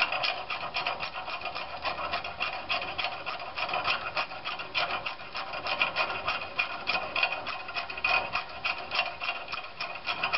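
Quarter-inch ratchet clicking rapidly and unevenly, with a scraping rub, as exhaust manifold studs are threaded into the cylinder head.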